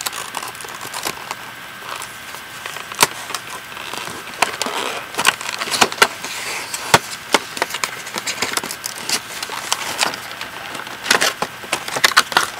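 A makeup-set box being handled and pried open by hand: irregular clicks, snaps and crackles of the packaging, with rustling between them.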